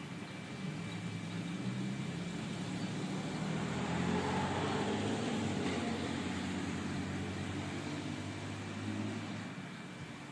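A road vehicle passing by, its engine and tyres growing louder to a peak about halfway through, then fading away.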